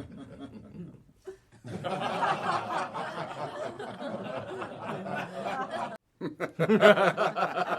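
People laughing and chuckling, with some talk mixed in. There is a sudden break about six seconds in, and the laughter comes back in louder bursts.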